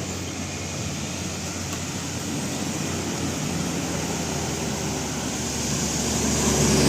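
Road traffic going by: engine and tyre noise, growing louder near the end as a vehicle approaches.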